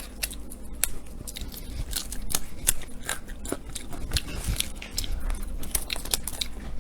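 Crisp, irregular crackles and snaps of an artichoke's tough leaves being picked apart and bitten.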